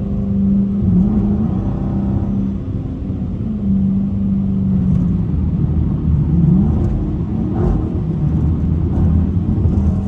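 Dodge Challenger R/T's 5.7-litre Hemi V8 cruising at highway speed, heard from inside the cabin as a steady low drone over road noise from the wet pavement. The engine note dips and recovers briefly about two-thirds of the way through.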